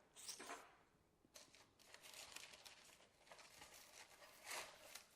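Faint rustling and scraping of parchment paper as roasted smashed Brussels sprouts are lifted off a lined baking sheet, in a few short bursts.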